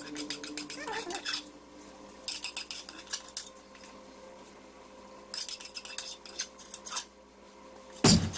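A metal fork mashing the shami kabab mixture on a ceramic plate, its tines scraping and clicking against the plate in three short runs of quick ticks.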